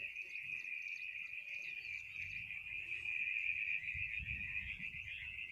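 A steady, high-pitched insect chorus that does not pause, with a faint low rumble in the middle.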